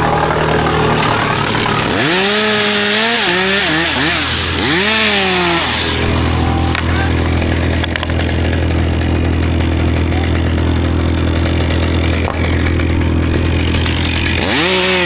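Chainsaw idling, then revved up and cutting for about four seconds with its pitch rising and wavering under load, before dropping back to a steady idle; it revs up again at the very end.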